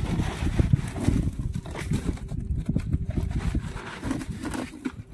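A large live boal catfish thrashing while held in the hands, its body and tail slapping in rapid, irregular thumps.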